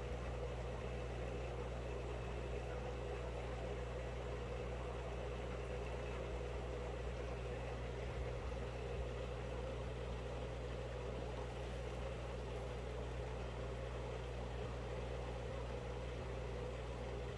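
Steady low hum of running aquarium equipment, with no change or break.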